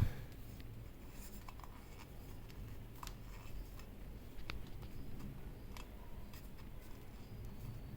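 Faint, scattered small clicks and taps of hands working parts at a motorcycle exhaust outlet while a baffle is refitted, with one sharper knock at the very start.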